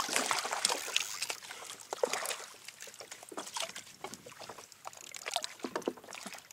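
Water sloshing lightly around a kayak, with scattered small knocks and clicks at irregular intervals, a little louder in the first second.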